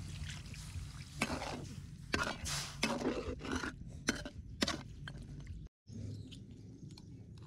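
Steel ladle scraping and knocking against the inside of a metal wok as catfish pieces and broth are stirred, a quick irregular run of scrapes and clinks that stops about five seconds in.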